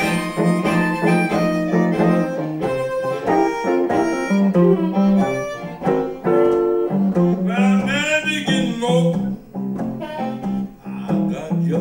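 Blues harmonica cupped to a microphone, with sliding, bent notes about two-thirds of the way through, over an archtop electric guitar picking a steady bass line and chords.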